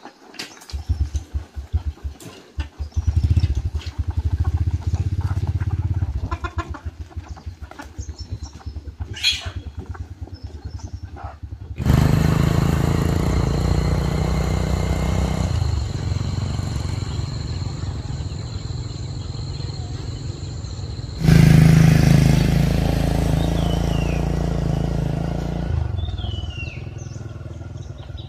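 Small motorbike engine starting and running with a quick low pulse. About halfway through it turns suddenly louder and steadier, as when riding, with a rushing noise over it. A bird chirps a few times near the end.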